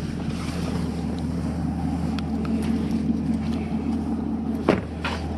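Steady low rumble of the Camaro SS's V8 idling, heard inside the cabin, with one short sharp sound near the end.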